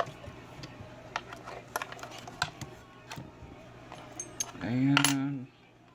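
Pick and tension bar working a 5-pin KW1 pin-tumbler lock: small irregular metal clicks and ticks, with a sharper click at the start.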